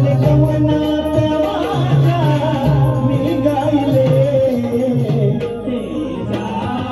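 Live shakti-tura folk song: a male voice singing through a microphone and PA over steady hand-drum strokes.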